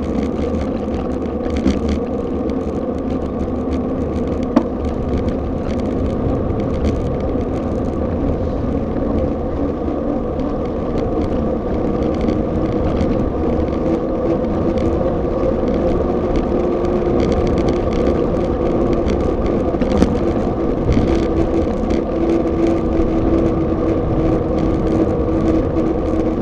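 Continuous wind and road rumble picked up by a handlebar-mounted action camera on a moving bicycle, with a steady humming whir that grows stronger in the second half. A few short sharp knocks stand out.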